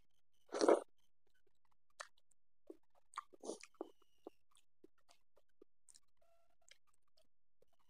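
Close-miked eating sounds: one louder wet mouth smack about half a second in, then scattered soft, sticky clicks of chewing and of fingers mashing rice and curry on a banana leaf.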